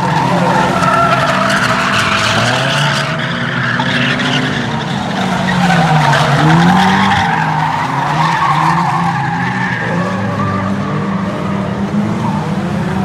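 Several 1600cc production-based race cars' engines revving and racing round an oval track, their pitches rising and falling as they go through the bends. About halfway through, one car passes close and is loudest, its engine pitch dropping as it goes by.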